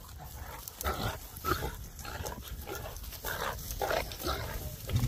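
Pig dogs grappling with a feral boar: about half a dozen short, rough grunts and growls between about one and four and a half seconds in, over scuffling.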